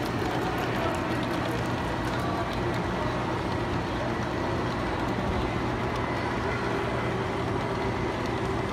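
Large-scale model train, a red locomotive hauling a string of boxcars, running past on its track with a steady rolling noise.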